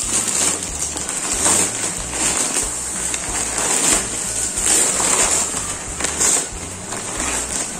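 Clear plastic packaging crinkling and rustling in a run of short, irregular crackles as it is handled and turned over.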